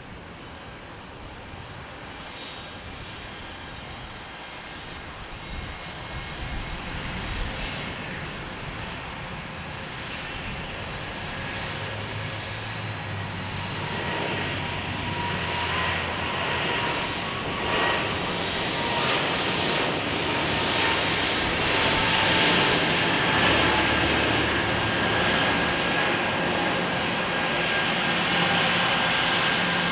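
Airbus A220's Pratt & Whitney geared turbofans spooling up and running at takeoff power as the jet rolls down the runway, a rushing roar with a steady fan whine. The sound grows louder through the first two-thirds, then holds.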